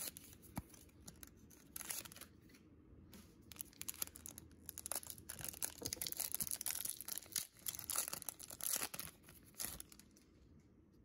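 Foil wrapper of a Pokémon trading-card booster pack being torn open and crinkled by hand: a dense run of crackling rustles that thins out near the end.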